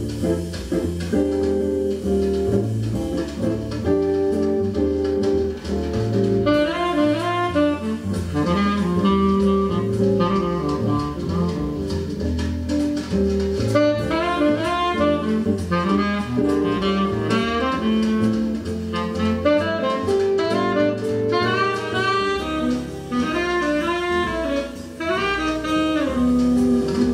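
Jazz music: a saxophone plays a busy melody over bass and chords, the melody coming in about six seconds in.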